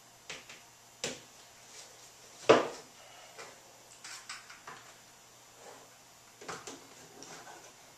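Scattered knocks and clicks of a plastic mixer bowl and a metal ice cream canister being handled and set down on a countertop, the loudest a sharp knock about two and a half seconds in.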